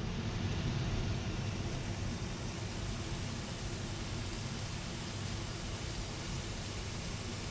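Steady sizzle of scampi frying in a pan, an even hiss with no breaks.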